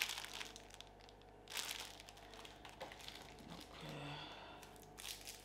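Clear plastic bag crinkling as makeup brushes are handled and pulled out of it, with a brief louder rustle about a second and a half in.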